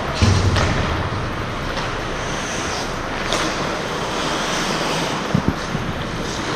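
Ice hockey play: a steady scrape and hiss of skates on the ice, broken by a few sharp knocks of sticks and puck, with a dull thud just after the start and two quick clicks near the end.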